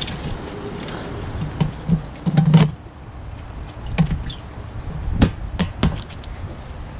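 A dip net scooping in a skiff's live bait well, with water sloshing loudest about two and a half seconds in, then a few sharp knocks as the net's handle and the well bump against each other and the deck as the net is set down.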